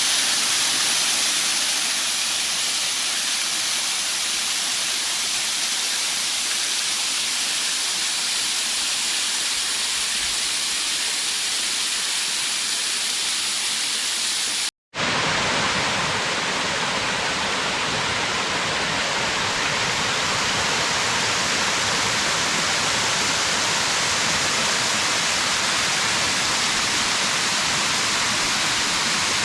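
Waterfall, a steady rush of falling water. It cuts out briefly about halfway through and comes back fuller and lower.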